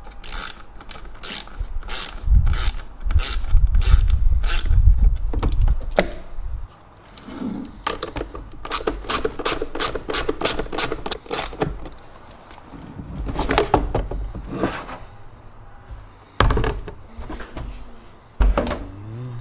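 Hand ratchet clicking as bolts on a car's factory airbox are undone: even runs of about three clicks a second, one in the first few seconds and another shorter, faster run near the middle. Scattered knocks and handling noises of plastic parts follow.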